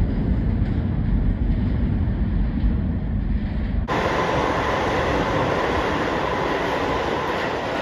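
New York City subway train running through a station with a deep rumble. The sound changes abruptly about four seconds in to a brighter rail noise carrying a steady high hum.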